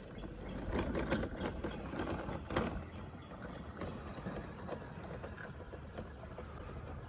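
Husqvarna Automower 450XH robotic lawn mower setting off, with a steady low hum from its electric motors. A cluster of clicks and rustles comes in the first three seconds, loudest twice, about one and two and a half seconds in.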